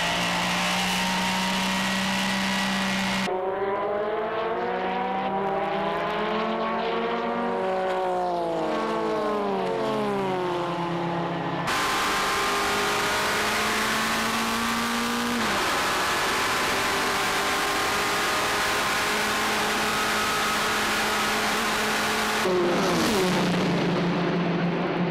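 Group C race cars' turbocharged engines at high revs, heard onboard the Porsche 962C and the Nissan R92CP. The pitch climbs through each gear and drops at the shifts, and a few seconds in it sweeps up and down again and again through corners. Near the end a car passes by on the main straight, its pitch falling.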